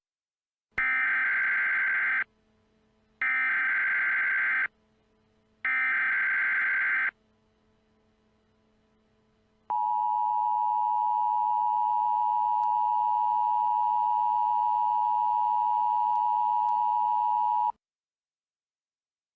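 Emergency Alert System SAME header: three short, loud bursts of digital data tones about a second apart. They are followed by the two-tone EAS attention signal held steadily for about eight seconds and then cut off, announcing a new alert.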